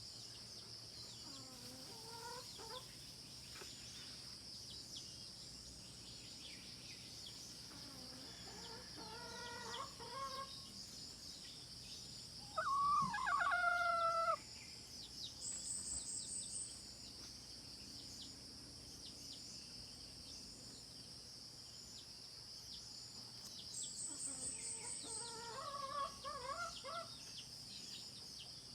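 Domestic chickens calling four times, the loudest a two-second call about halfway through, over a steady high drone of insects.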